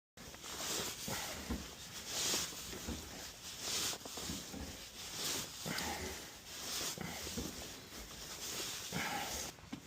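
Hand work on threaded steel gas pipe fittings: irregular scraping and rustling, with brighter scraping strokes about every second and a half and soft knocks.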